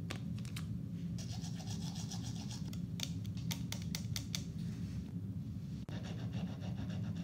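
Toothbrush scrubbing teeth: a steady rasping back-and-forth with scattered clicks.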